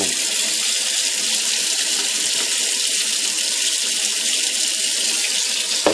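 Kitchen tap running steadily into a stainless steel sink while rolled oats and raisins are rinsed in a plastic container, the water splashing and spilling out of the container into the sink. A brief knock comes near the end.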